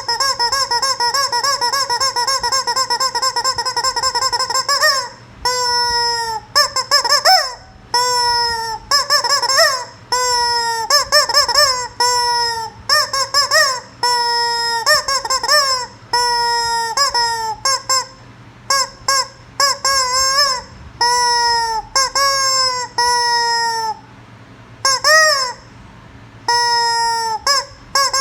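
Rubber chicken squeeze toy squawking: one long fluttering squawk held for about five seconds, then a string of short honking squawks, roughly one a second, with longer gaps between them in the last third.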